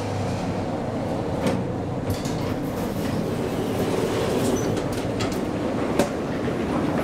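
1994 Thyssen inclined elevator cab running with a steady low hum as it arrives, a click about one and a half seconds in as its doors open, then metro station concourse noise with a sharp knock about six seconds in.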